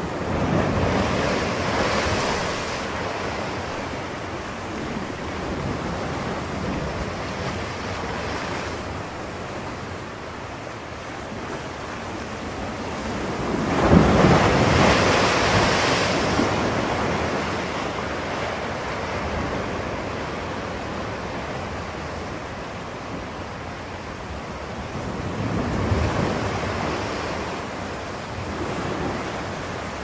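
Ocean surf: waves breaking and washing in, swelling about every twelve seconds, loudest around the middle.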